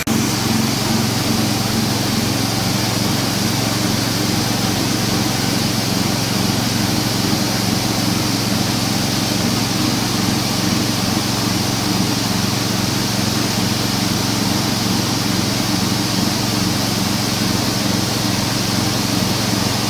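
Feed-pellet crumbler machine running steadily, a constant mechanical drone with a low hum.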